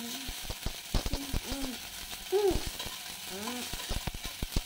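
Chopped ginger and whole spices sizzling in hot oil in a metal kadai, with a metal spatula stirring and scraping against the pan in many short knocks.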